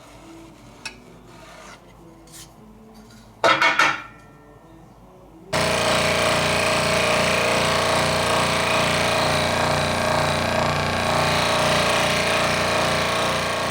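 A power tool at a workbench gives a brief burst about three and a half seconds in, then starts about five seconds in and runs steadily, loud and even.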